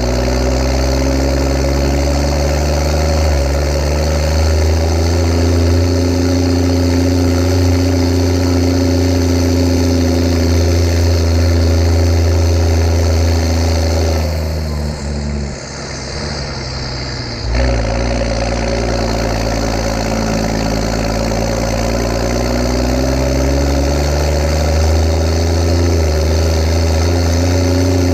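A Steyr 8130 Turbo tractor's six-cylinder turbo diesel runs under load pulling a 12,000-litre water tanker, its pitch rising and falling with engine speed. About halfway through the engine note drops away for roughly three seconds, then comes back with a sharp jolt.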